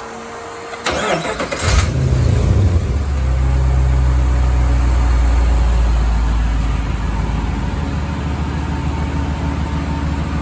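Gen III Hemi V8 cranked by its starter for under a second, catching about two seconds in and running at a fast idle. The idle eases a little lower after several seconds.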